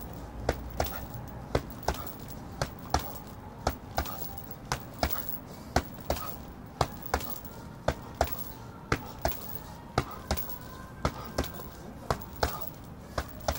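Boxing gloves punching a heavy bag: sharp thuds, about two a second, often landing in quick pairs as combinations.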